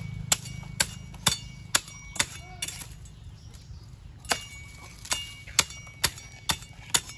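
A knife chopping on a cutting board with about two strikes a second and a short pause midway, each blow with a slight metallic ring. A steady low hum runs underneath.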